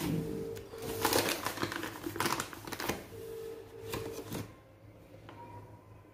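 Plastic bag of rice flour rustling and crinkling as a small cup is pushed in to scoop flour and tipped into a plastic bowl, in three or four short bursts that die away near the end.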